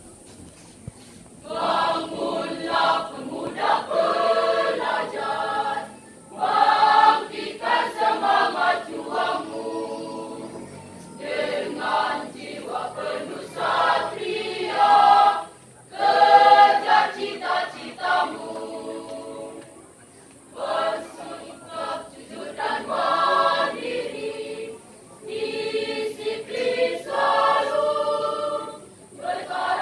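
Mixed high-school choir of boys and girls singing together in sung phrases broken by short pauses. The singing begins about a second and a half in.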